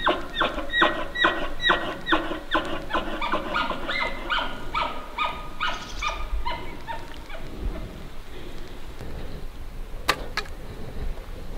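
Bull elk chuckling after a bugle: a long run of short, rhythmic grunts, about three a second, that fades out over about seven seconds. Two sharp clicks come near the end.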